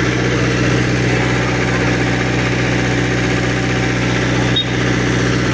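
An engine idling with a steady, even hum that does not change in speed, broken by a brief dropout about four and a half seconds in.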